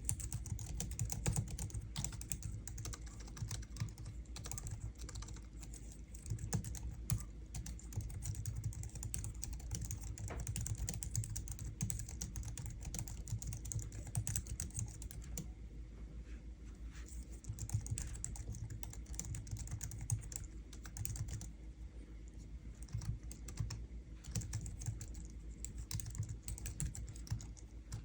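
Steady typing on a Logitech MX Keys low-profile scissor-switch keyboard: a fast, irregular run of soft key clicks, with short pauses about midway and again about three quarters in.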